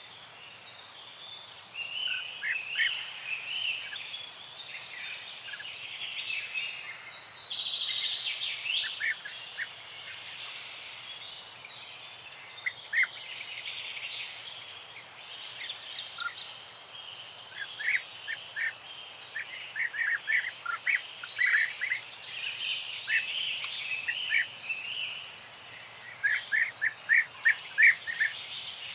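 Several songbirds singing and chirping together in a morning chorus, with trills and quick runs of sharp repeated chirps, over a faint steady background hiss.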